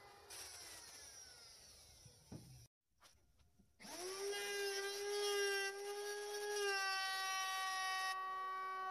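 Handheld electric router flush-trimming the edge of an MDF board. Its whine falls away at the start, and about four seconds in it starts up again, rising quickly to a steady high whine, with a hiss of cutting over it until about eight seconds in.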